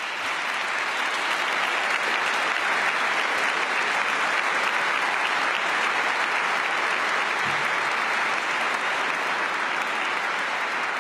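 Audience applauding: a large crowd clapping in a dense, steady round that swells over the first second or so and then holds.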